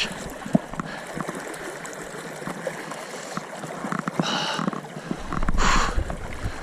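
River water flowing steadily around a wading angler, with two short splashy bursts of noise about four and five and a half seconds in.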